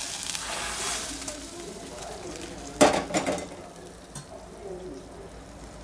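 Hot oil tempering of mustard seeds, onion and curry leaves sizzling in a small steel pan as it is scraped out with a steel ladle. About three seconds in comes a short cluster of sharp metal clanks of the ladle against the pan as the tempering is knocked onto the fish gravy.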